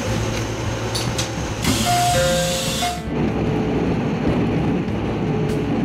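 Inside a commuter train car: a steady rumble and hiss, then a loud hiss about two seconds in that lasts a little over a second, with two short steady tones over it. After a cut about three seconds in, the low rumble of the train running.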